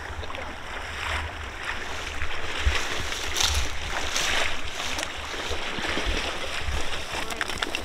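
Water sloshing and splashing as a wader moves through a shallow slough and a dog swims, with dry reeds rustling close by and wind rumbling on the microphone.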